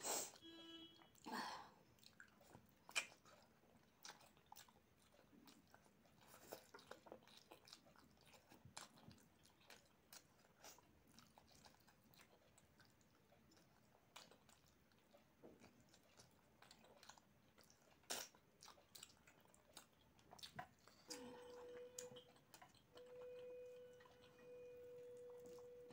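Close-miked chewing of rice and chicken curry eaten by hand, with soft, scattered mouth clicks. A steady hum comes in near the end.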